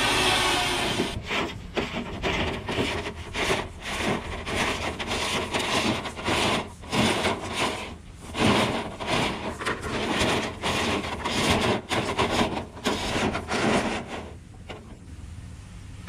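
A steady rush of air blasting lint out of a dryer vent, cut off about a second in. Then irregular scraping and rubbing strokes as an inspection camera's rod is pushed in and out through the vent hood and along the duct.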